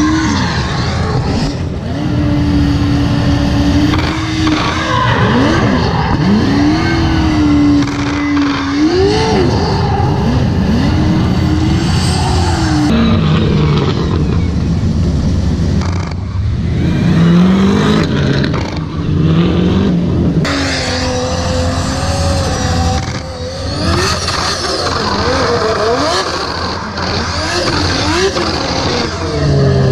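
High-revving drift car engines rising and falling in pitch as the cars are held in slides, with tyre squeal and screeching. The sound changes abruptly several times between separate passes.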